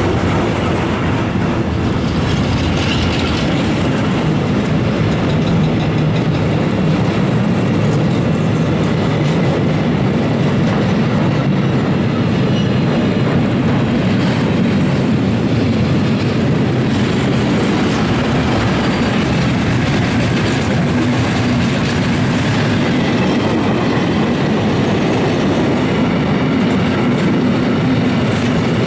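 Freight train wagons rolling past at close range: a loud, steady rumble of wheels on rail with the clickety-clack of wheelsets running over rail joints.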